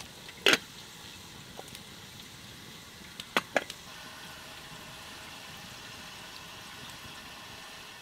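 Water bubbling at a steady simmer in a glass teapot of red berries, an even hiss. A sharp plop comes about half a second in, and two more quick plops just after three seconds as berries drop into the water.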